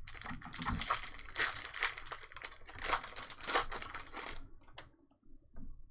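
Foil trading-card pack wrappers being torn open and crinkled, with a dense crackle of handling that stops about four and a half seconds in.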